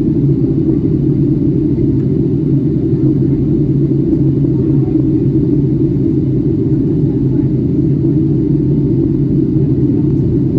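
Boeing 757-300 airliner cabin noise in flight: a steady, loud low rumble of engines and airflow with a constant low hum.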